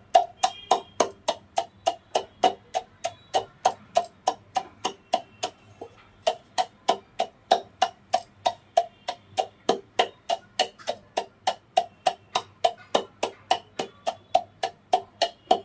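A wooden pestle pounds naphthalene (mothball) powder in a mortar, knocking steadily about four times a second with a brief pause about six seconds in. The mothballs are being crushed to a fine powder.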